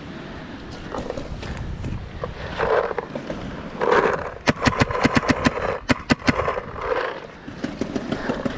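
Paintball marker firing a rapid string of about a dozen shots in two quick bursts, about four and a half to six and a half seconds in.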